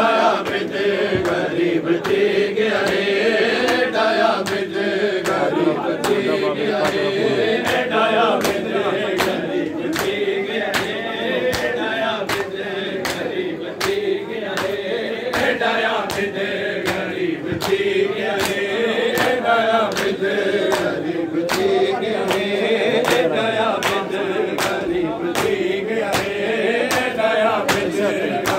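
A crowd of men chanting a mourning lament together, with regular sharp beats of matam (ritual chest-beating) keeping the rhythm, roughly three every two seconds.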